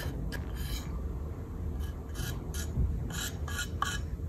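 A thin metal blade scraping the rim and mold seam of a freshly cast cement planter: about eight short scrapes, the last few in quick succession.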